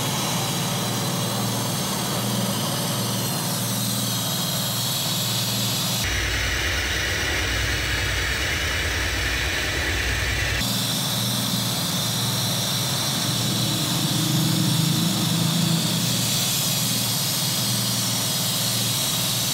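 Toyota Vios engine running with a loud, steady hiss over it, during a carbon-cleaning tune-up. The sound changes abruptly about six seconds in and changes back about four seconds later.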